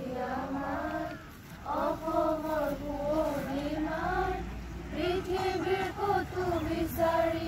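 A large group of girls singing together in unison: a slow melody of long held notes, with a brief break for breath about a second and a half in.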